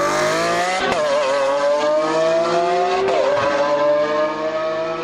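Two V12 supercars, a Lamborghini Aventador and a Ferrari F12, accelerating hard side by side. The engine note climbs steadily, drops sharply at an upshift about a second in and again about three seconds in, then climbs again.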